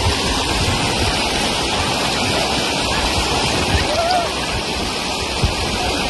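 Shallow river rushing over a rocky bed in small rapids: a steady, loud rush of water.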